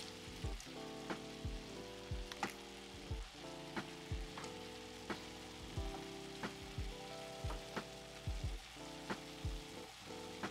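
Background music with a drum beat and held chords, over the faint sizzle of ground beef and canned diced tomatoes cooking in a frying pan as they are stirred with a wooden spoon.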